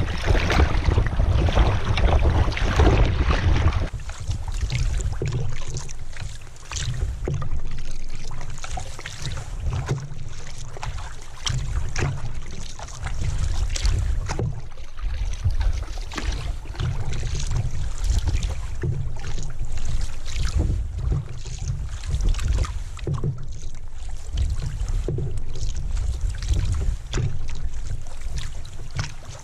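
Canoe being paddled, heard through a GoPro mounted in the hull: paddle strokes and splashing water, with a low wind rumble on the microphone and clunks of the paddle against the gunwale carried through the boat. The loud wind and wave noise drops away sharply about four seconds in, leaving quieter strokes and knocks.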